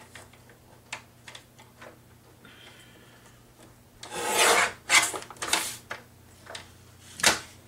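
Sheets of paper sliding and rubbing against each other on a desk, in a few loud rustling strokes about halfway through, after some light taps and followed by one sharp click near the end.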